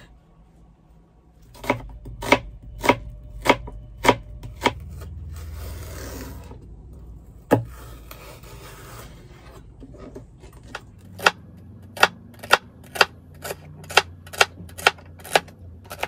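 Kitchen knife chopping kale and celery on a plastic cutting board: a run of sharp knocks as the blade strikes the board, a stretch of scraping in the middle, then quicker chopping at about two knocks a second near the end.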